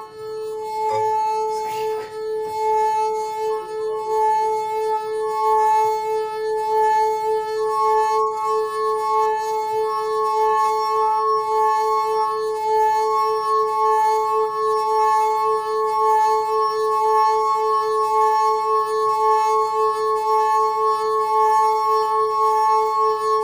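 Wine glass singing under a wet finger circling its rim: one steady, sustained ringing tone with a slight quick wobble as the finger goes round, a higher overtone fading in and out.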